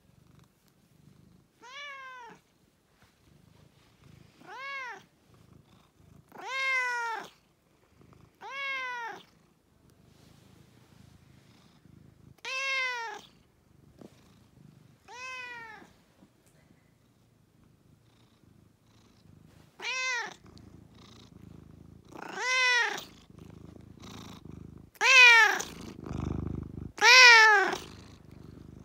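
A tabby-and-white domestic cat meowing about ten times, each meow a rising-then-falling call about half a second long, getting louder and coming closer together in the second half, with purring underneath. These are insistent meows for food from a hungry cat past her feeding time.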